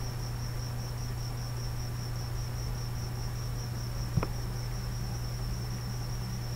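Steady low hum under a high, evenly pulsing chirp, with one sharp click a little after four seconds in.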